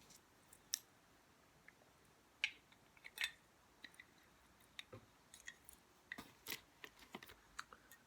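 Scattered light clicks and taps of small parts being handled on a workbench, a dozen or so uneven strokes with the sharpest near the start and in the middle.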